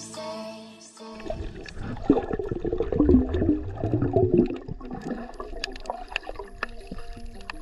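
Water gurgling and sloshing around an underwater camera, with many short clicks. Music fades out about a second in, and a new tune comes in faintly after about five seconds.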